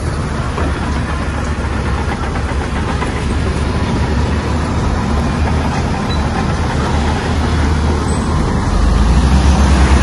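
Shantui bulldozer's diesel engine running steadily under load, getting louder near the end.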